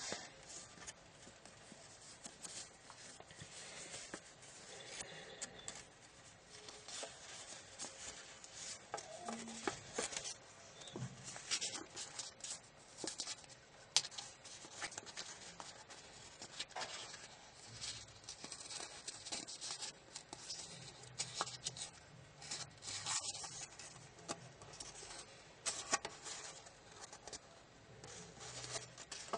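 Origami paper rustling and crinkling as fingers fold it and press it along existing creases, with many small irregular crackles.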